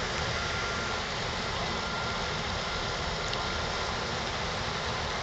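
Steady engine and wind noise aboard a river cruise ship under way, with a thin high whine that comes and goes.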